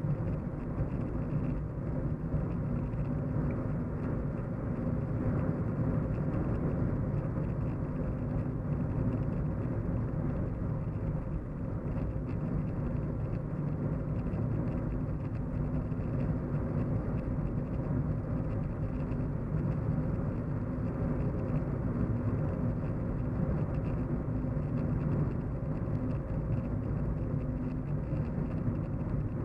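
Steady low hum of a car driving, heard from inside the cabin: an even drone of engine and road noise with a faint steady tone in it, unchanging throughout.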